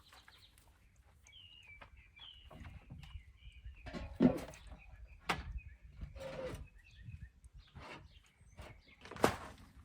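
Birds chirping faintly and repeatedly outdoors, with a few sharp knocks and clunks in between, the loudest about four seconds in and another near the end.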